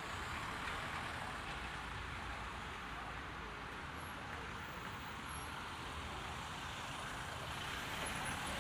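Steady road traffic noise on a city street: an even hiss of passing vehicles over a low engine rumble, growing slightly louder near the end.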